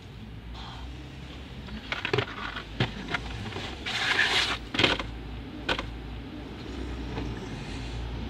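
Plastic clicks and knocks from the Kia Sportage's cabin air filter housing behind the glovebox as it is opened and the filter handled, with a brief scraping rustle about four seconds in.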